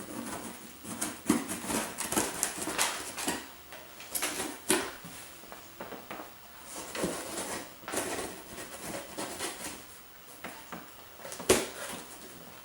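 A cardboard shipping box and its packing material being handled and opened: irregular rustling with scattered clicks and knocks, the sharpest knock near the end.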